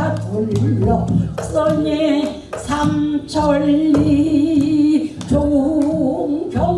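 Elderly woman singing pansori solo, holding long notes that waver and bend, with sharp knocks sounding now and then.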